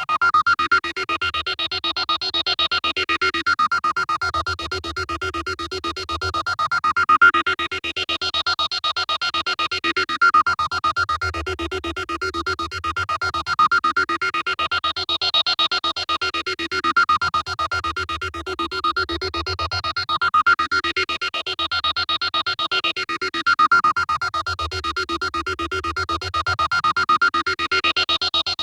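Synthesized sci-fi space alarm, a robot scanning noise. A rapidly pulsing electronic tone with slow sweeps that rise and fall over and over, starting suddenly out of silence.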